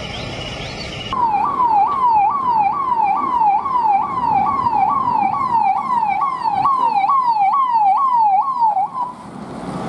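Police vehicle siren sounding a fast rising-and-falling yelp, about two cycles a second, over passing traffic; it starts abruptly about a second in and stops near the end.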